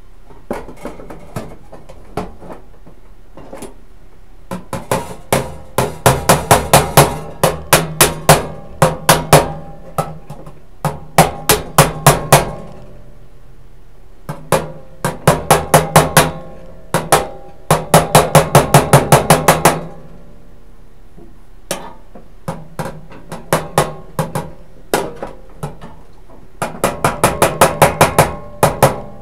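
Hammer blows on steel sheet metal in three runs of quick strikes, several a second, each with a short metallic ring, after a few light taps.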